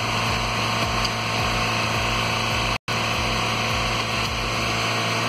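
Steady mechanical running noise with a low hum and a hiss, heard inside a car's cabin. It cuts out for an instant about halfway through.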